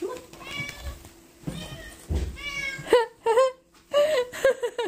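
Domestic cat meowing repeatedly: two longer, drawn-out meows, then four or five short meows in quick succession.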